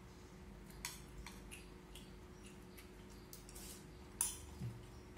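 Chopsticks clicking against a ceramic rice bowl while eating: a few light, scattered clinks with a louder one about four seconds in, over a low steady hum.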